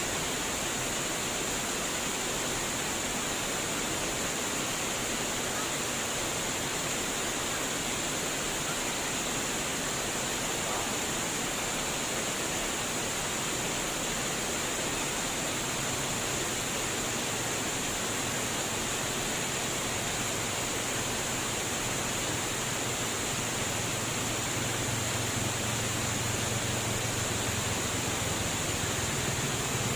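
Water flowing in a steady, even rush. From about halfway a low hum comes in under it and grows louder towards the end.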